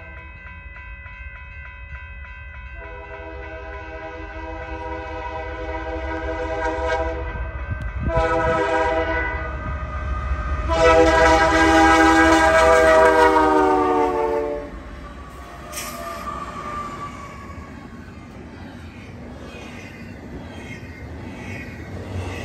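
Union Pacific GE diesel freight locomotive's multi-chime air horn sounding several long blasts for a grade crossing, growing louder as it approaches and dropping slightly in pitch as it passes, about 14 seconds in. Then the rumble and clatter of double-stack intermodal container cars rolling by.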